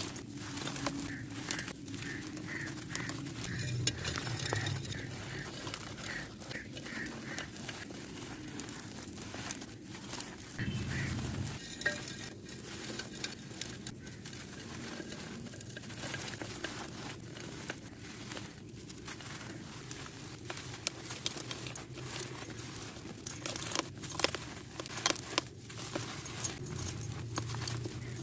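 Dry sand-cement chunks being crushed and crumbled, giving irregular gritty crackles and the patter of falling grit, a little denser and louder near the end.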